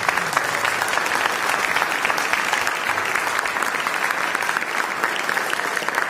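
Congregation applauding: steady clapping from many hands, without a break.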